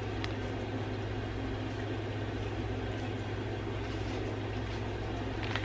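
Steady low hum with an even hiss: room background noise, with no distinct events.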